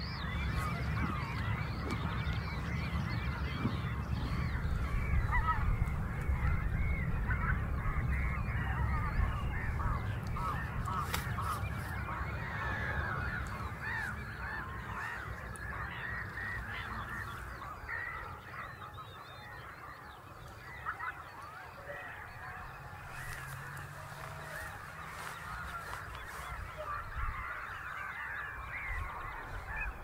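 A large flock of wild geese calling together: a dense, overlapping chorus of honks, loudest in the first third and easing off a little later, over a low steady rumble.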